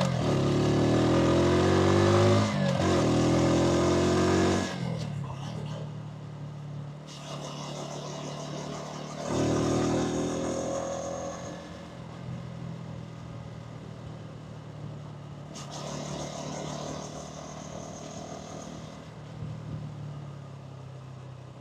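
Hansom Bike Venet 125cc motorcycle engine and exhaust accelerating, its pitch climbing, dipping briefly about two seconds in and climbing again, then dropping away sharply as the throttle closes near five seconds. A shorter rise follows about nine seconds in, then the engine settles to a low steady note.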